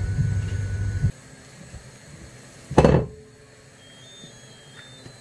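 A steady low hum that cuts off suddenly about a second in, then a single dull thump on the kitchen worktop near the middle.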